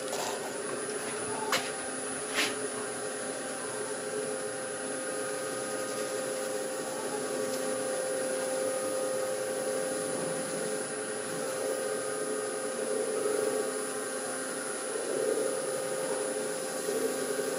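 Wood lathe running at a steady speed with a steady hum, spinning a large bowl. Two sharp clicks about one and a half and two and a half seconds in.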